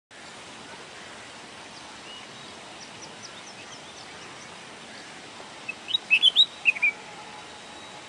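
Red-whiskered bulbul singing a quick phrase of about six loud notes that rise and fall in pitch, lasting just over a second near the end. Before it come a few faint, short, high chirps over a steady hiss.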